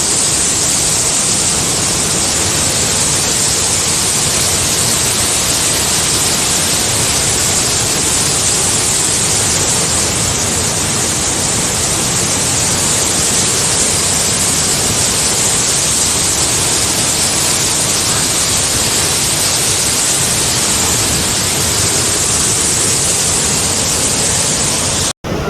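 Loud, steady rush of water from heavy monsoon rain and flooding, a dense hiss with no let-up. It cuts off abruptly near the end.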